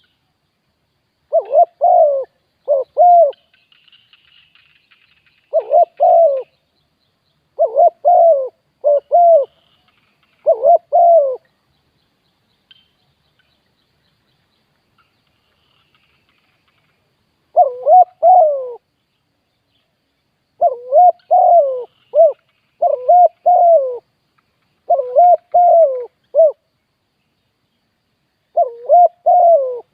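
Spotted dove cooing loudly: short groups of low, rolling coos repeated again and again, with a pause of about six seconds midway. Faint high twittering sits behind it about three to five seconds in.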